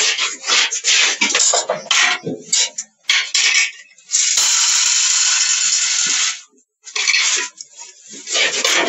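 Dry grain being scooped with a plastic cup and tipped into a metal pot: rustling and clattering of the cup, sack and pots, with a steady hiss of grain pouring for about two seconds from about four seconds in, cut off sharply.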